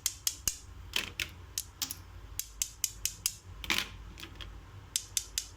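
Homemade hard-candy cough drops being tapped together, making an irregular series of sharp, hard clicks. The crisp click is the sign that the candy has set fully hard, like shop-bought sweets.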